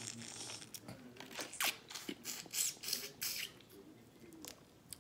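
A person loudly sucking and slurping spicy seafood-boil sauce off food and fingers, a quick run of wet sucks in the middle, one with a falling pitch. After that, quieter crackling as a shrimp shell is peeled by hand.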